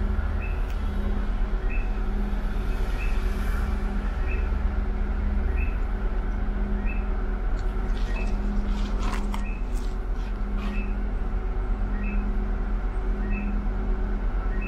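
Inside a city bus, the engine rumbles steadily while a short high tick repeats evenly, a little slower than once a second, with a few light rattling clicks partway through.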